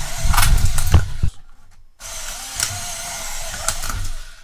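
Gearwrench ratcheting wrenches being worked out of their retail packaging: rattling, clicking and scraping of metal wrenches against plastic, with a short pause about a second and a half in.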